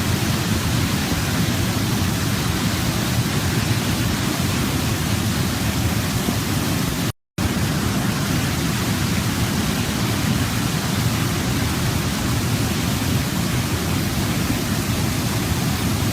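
Waterfall: a steady, even rush of falling water, heaviest in the low end, broken by a split-second gap of silence about seven seconds in.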